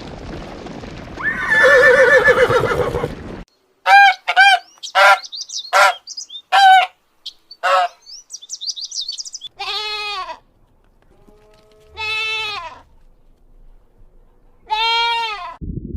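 A run of farm animal calls. About seven short pitched calls come in quick succession with high chirping over them. Then three longer calls follow, each rising and falling in pitch, a couple of seconds apart.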